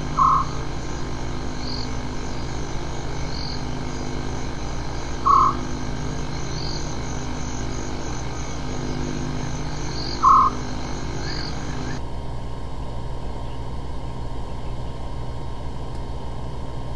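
Steady hiss and hum of an old wildlife film soundtrack, with a short call repeated three times about five seconds apart and fainter high chirps between. The high hiss drops away about twelve seconds in.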